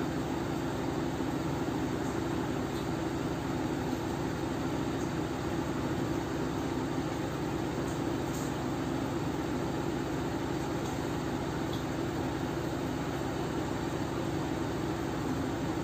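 Steady low mechanical hum with a hiss over it, unchanging throughout, with a few faint small ticks.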